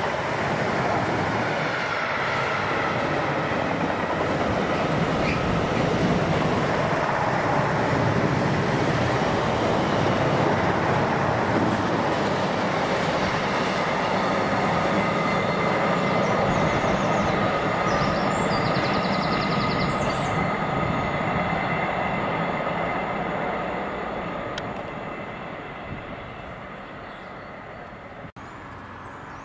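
Freight train running past on the rails, its wagons making a steady rolling noise with a few faint steady tones over it. The noise fades away over the last five seconds or so as the train recedes.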